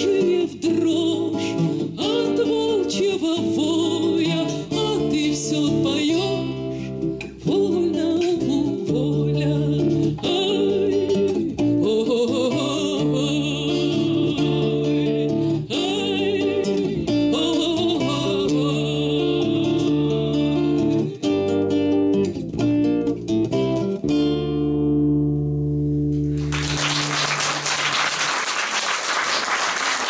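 A woman sings a Russian bard song to her own acoustic guitar. The song ends on a held chord, and the audience applauds for the last few seconds.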